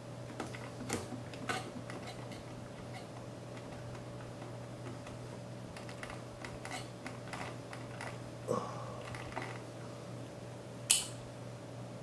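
Scattered small metal clicks and taps as fingers turn the knurled thumb nuts that hold down a Koolance CPU-370 water block, with one sharper click near the end, over a faint steady hum.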